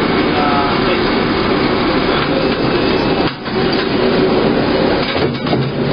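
Grape sorting line machinery running with a steady, loud mechanical rattle as grapes pass along the sorting tray, dipping briefly about three seconds in and again near the end.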